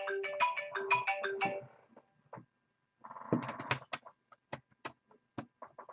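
A mobile phone's ringtone plays a short melody for about a second and a half. From about three seconds in come a run of light clicks and taps.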